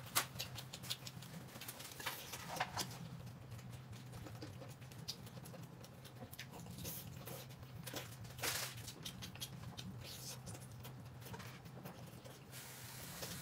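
Faint close-up eating sounds: a person gnawing and chewing meat off a large chicken leg, with many small irregular clicks and smacks over a low steady hum.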